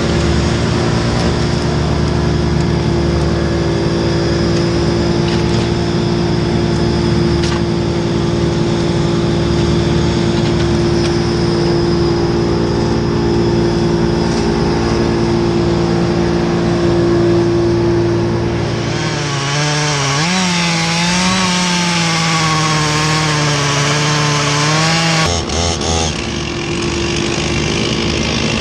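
Two-stroke chainsaw running at high speed with a steady engine note. About two-thirds of the way in, the pitch wavers and the sound brightens for about six seconds as the saw comes under load cutting wood, then the note steadies again.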